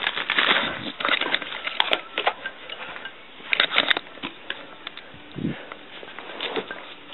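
Rustling and crinkling as a packaged sky lantern is handled, loudest at the start, then scattered light clicks and taps.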